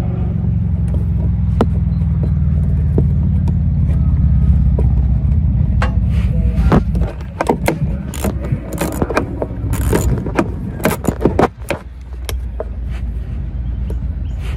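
Hands working the plastic wheel-well liner of a Toyota RAV4, giving a run of clicks, knocks and rattles from about six seconds in. Under it is a low steady rumble that fades about halfway.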